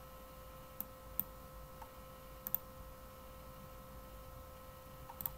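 Faint sharp clicks from a computer's mouse and keys: single clicks in the first second or so, a quick double about two and a half seconds in, and a quick cluster near the end. A faint steady electrical whine runs underneath.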